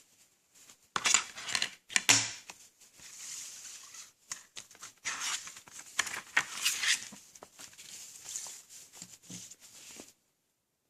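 Packaging being handled: crinkling plastic wrap and clicking, knocking case sounds, loudest in a burst near the start, stopping abruptly near the end.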